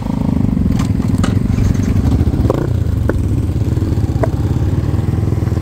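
Motorcycle engine idling close by, a steady low throb with a few light clicks over it.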